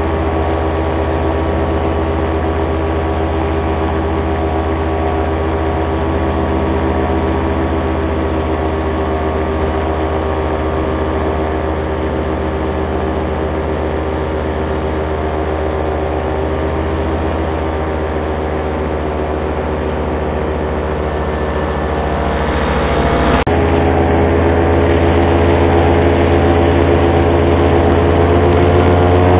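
Paramotor engine and propeller running steadily in flight. About three-quarters of the way through the sound changes abruptly, and near the end the engine note rises a little as it revs up.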